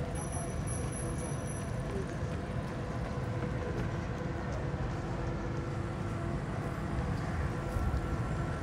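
Steady low rumble of outdoor city ambience on a riverside walkway, even in level throughout.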